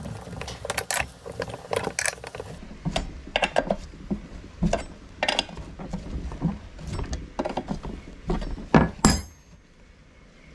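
Irregular mechanical clicks and clunks, like metal parts and tools being handled, with the loudest clanks about nine seconds in before it goes quieter.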